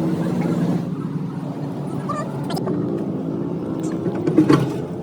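An engine running steadily, with a few sharp clicks and knocks of metal work over it.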